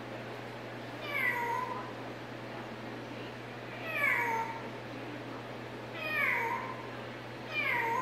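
African grey parrot imitating a cat's meow: four falling meows, each under a second long, about two seconds apart.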